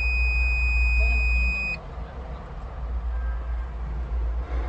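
CAT 306CR excavator's diesel engine running steadily, with a continuous high-pitched electronic buzzer tone that cuts off suddenly about two seconds in.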